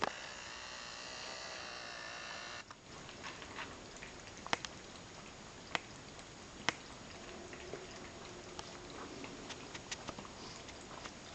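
Cats lapping water from a bowl: a soft, uneven run of small wet ticks and clicks, with a few sharper clicks. A steady high whine cuts off suddenly about two and a half seconds in.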